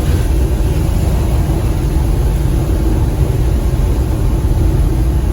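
Suzuki Multicab van driving: a steady, loud low rumble of engine and road noise.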